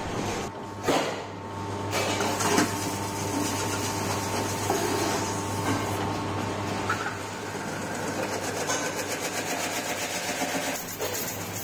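Lathe running with a steady hum while brass plates are turned on it, with a few sharp metallic knocks about a second and two and a half seconds in as the plates are handled.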